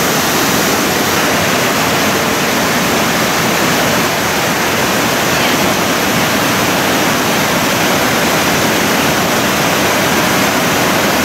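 Thi Lo Su waterfall: a loud, steady rush of falling water with no breaks.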